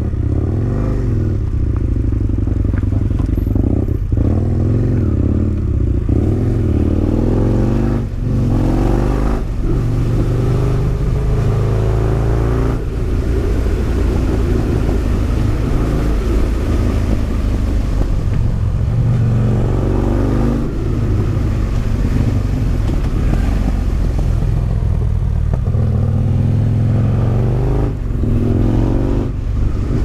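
Husqvarna Nuda 900's parallel-twin engine running as the motorcycle rides downhill through tight hairpins, the revs rising and falling again and again with the throttle. The engine note drops off briefly a few times, about 8, 20 and 28 seconds in.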